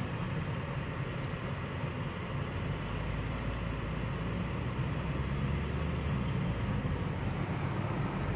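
Steady road noise of a car driving at highway speed, heard from inside the cabin: a low rumble of tyres and engine under a hiss of wind, the rumble swelling for a few seconds in the middle.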